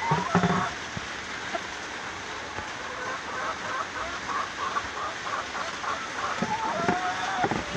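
Broody hen sitting on eggs clucking, with a quick run of short clucks in the middle and a longer drawn-out call near the end. Straw rustles as a hand reaches under her, over a steady background hiss.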